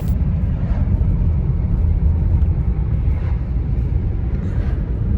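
Loud, steady low rumble that starts abruptly.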